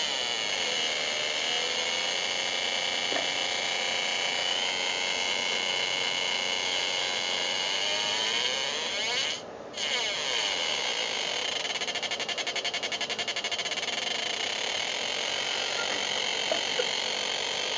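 Homemade breadboard synthesizer, a Schmitt-trigger NAND gate oscillator through a 386 amplifier into a small speaker, giving a harsh buzzy electronic tone whose pitch slides up and down as its frequency potentiometer is turned. It dips briefly about halfway through, then warbles rapidly for a couple of seconds.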